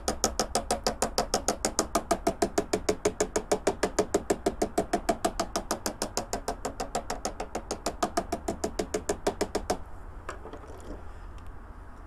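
Plastic paintbrush handle tapping rapidly on the model railway rails, an even train of light knocks at about seven a second that stops suddenly about ten seconds in. The tapping vibrates loose ballast off the rails and sleepers into position.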